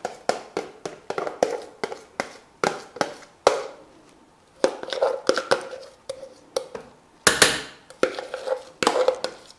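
Whipped cream being scraped and tapped out of a plastic measuring jug into a stainless steel mixer bowl: irregular clicks and knocks, about two a second, with a longer scrape a little past the middle.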